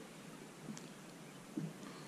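Faint handling sounds from hands rigging a bait on fishing line: a couple of small soft ticks and rustles over a low, even hiss of wind and water.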